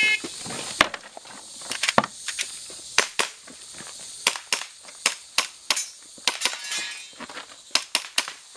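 Airsoft pistol firing a fast string of shots, many in quick pairs, about eighteen over eight seconds. Just before the first shot, the tail of an electronic shot-timer's start beep ends.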